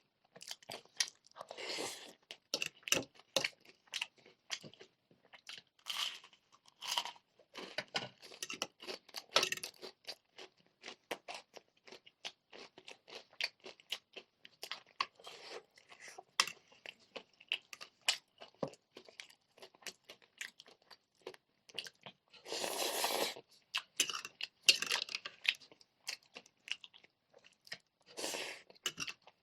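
Close-miked eating: crispy fried chicken crunching and being chewed, in many irregular sharp crunches, with a few longer, louder noisy bursts, the biggest about two-thirds of the way through.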